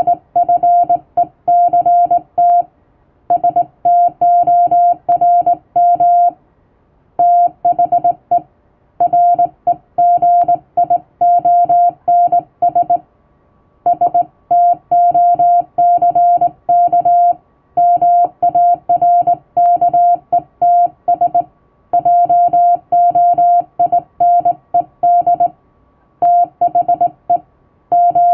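Hand-keyed Morse code sending plain English text: a single steady beeping tone switched on and off in dots and dashes, with short pauses between words.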